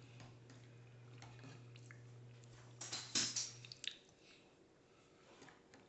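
Eating from a spoon: small clicks of the spoon and wet mouth sounds, loudest as a mouthful of soft food is taken about three seconds in. A low steady hum stops about four seconds in.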